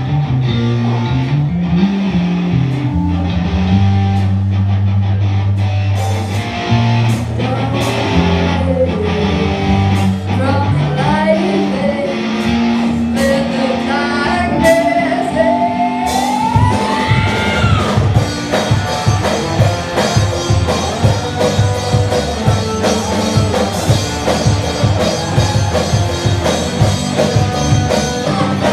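A live rock band playing: a woman singing over electric guitars, bass guitar and drums. Her voice slides through long notes in the middle, and about halfway through the drums settle into a steady, busier beat.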